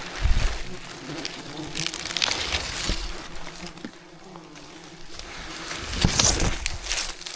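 Swarm of giant honey bees (Apis dorsata) buzzing in a steady hum, broken by several louder bursts of noise.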